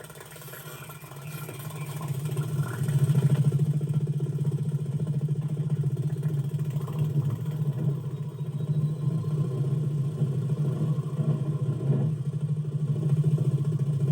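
A steady low buzz that swells over the first three seconds and then holds.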